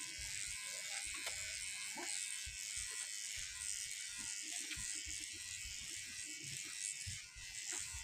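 Electric hair clippers running steadily, buzzing while cutting short hair held up on a comb, with scattered soft low bumps.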